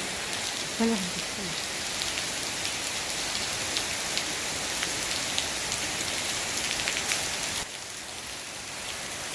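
Steady rain falling, a continuous hiss with many sharp drop ticks on a nearby surface; it eases slightly about three-quarters of the way through.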